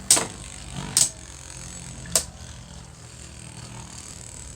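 Beyblade spinning tops clashing in a plastic stadium: three sharp clacks in the first two seconds or so, over a steady faint whir of the spinning tops.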